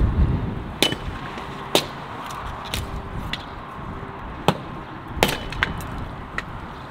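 Hatchet splitting small pieces of wood into kindling: a run of about eight sharp, crisp knocks at uneven intervals, the loudest about halfway through.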